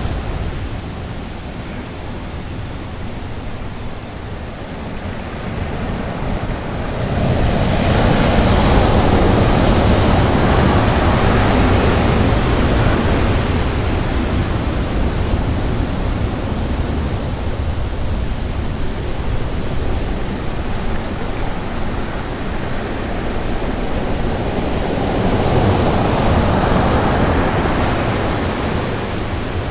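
Sea surf breaking on the beach: a steady rushing wash that swells about a quarter of the way in and again near the end.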